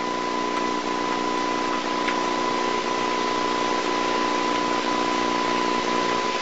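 Steady hiss from an old videotape soundtrack, with a constant high tone and a low hum under it.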